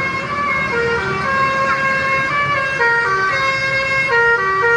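A truck's telolet horn, a set of electric air-horn trumpets, playing a tune: a run of steady notes that jump to a new pitch every fraction of a second, often two notes sounding together.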